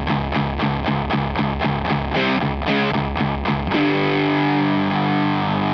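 Electric guitar through a Catalinbread Carbide distortion pedal, an HM2-style 'chainsaw' distortion with its emphasis knob rolled back slightly, playing a heavy riff. It starts with fast, evenly repeated muted chugs, about five a second, then a held chord rings out for the last two seconds.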